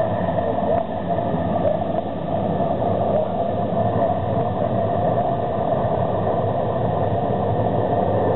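A field of stock cars circling the oval, many engines running together in one steady drone that holds level as the pack comes around toward the fence.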